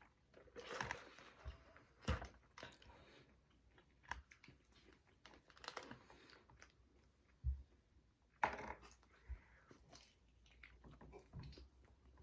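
Faint mouth sounds of eating chicken wings: irregular chewing, biting and small crunches, with short wet smacks here and there.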